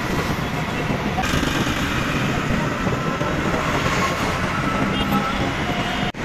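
Auto-rickshaw ride: steady engine and road noise from the moving three-wheeler in traffic.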